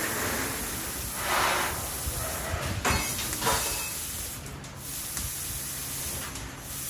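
CNC laser cutting machine cutting sheet steel: a steady hiss of the cutting jet at the nozzle, swelling into louder surges of hiss, the strongest about a second and a half in, with a few short sharp ticks and a faint low machine hum beneath.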